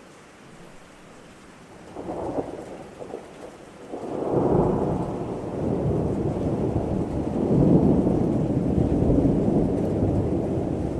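Thunderstorm: steady rain with a short clap of thunder about two seconds in, then a long rumble of thunder from about four seconds that swells, loudest near eight seconds, and goes on to the end.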